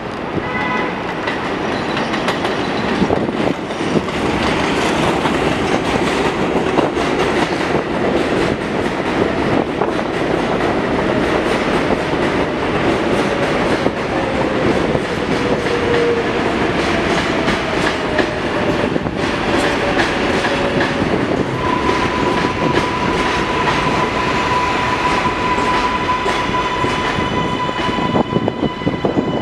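New York City Subway R188 train pulling into an elevated station: a continuous rumble of wheels on rail with rapid clacking over the joints. A whine falls in pitch midway as the train brakes. A steady high tone sounds through the last several seconds as it comes to a stop.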